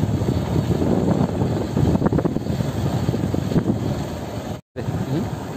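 Wind buffeting the microphone and motorcycle road noise while riding, a steady rumbling rush. The sound drops out for an instant near the end.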